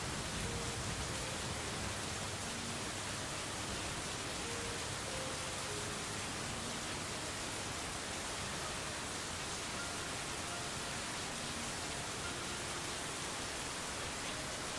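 Meditation background track: a steady, even rushing noise with faint single notes held briefly here and there at different pitches.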